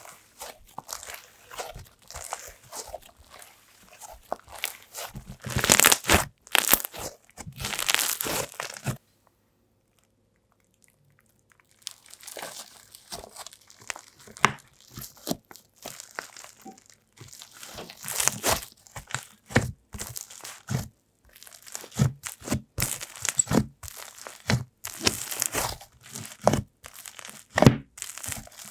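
Slime being squished, stretched and poked by hand, giving dense irregular crackles, clicks and little air-bubble pops. The sound stops for about three seconds around nine seconds in, then starts again.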